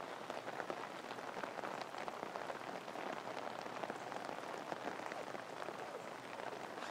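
Steady patter of water, a dense spatter of many tiny drop ticks with no single loud event.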